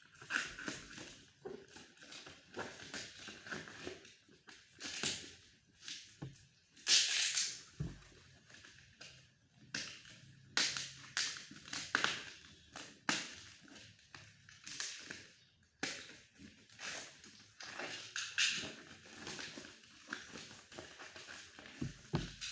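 Packaging being handled and opened: irregular crinkling and rustling with scrapes and sharp clicks.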